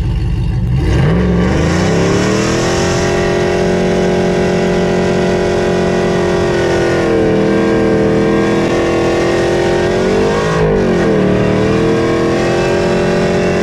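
Cammed V8 of a RAM 1500 pickup with a rear-mount turbo, revving up over the first second or so and then held at steady revs. The revs dip and recover briefly about ten seconds in.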